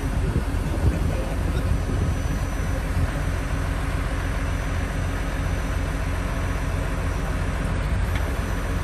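Case IH Maxxum 115 diesel tractor engine running steadily while it powers the hydraulics that swing and fold the Kinze 3500 planter.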